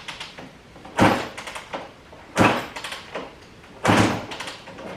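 KTM 200 two-stroke single being kicked over on the kickstarter without firing, three kicks about a second and a half apart. Each kick is a sharp thump followed by a short rattle as the crank turns through compression. This checks that the freshly rebuilt top end turns freely without binding.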